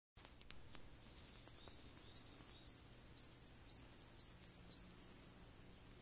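A wild songbird singing a run of about eight repeated high two-part notes, roughly two a second, starting about a second in and stopping near the end.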